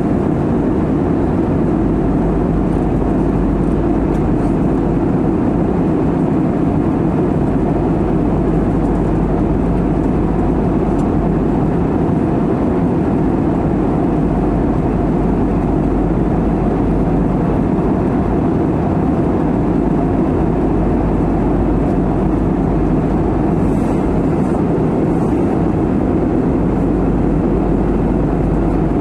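Steady cabin noise of an Airbus A320-family jet airliner in cruise: the even, deep rush of the jet engines and the airflow over the fuselage, heard from a window seat over the wing.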